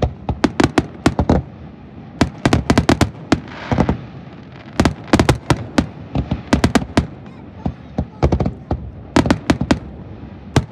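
Aerial firework shells bursting in rapid volleys: clusters of sharp bangs, several a second, separated by short pauses.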